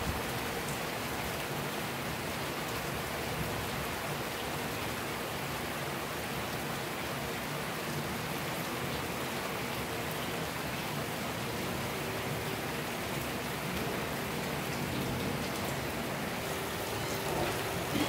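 Steady rain falling, an even hiss of drops.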